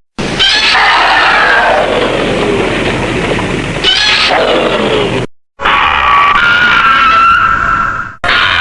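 Kaiju roar sound effects played back to back: a long screeching roar that falls in pitch, then after a short break a roar held on a steady high pitch that cuts off abruptly, with another starting straight after.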